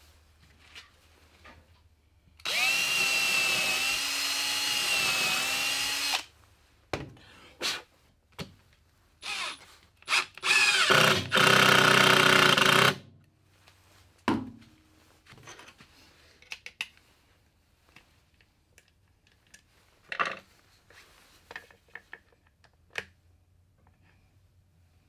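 Cordless drill running into plywood in bursts: a steady whine for nearly four seconds, a few short spurts, then a louder run of about two and a half seconds, followed by light knocks and handling clicks.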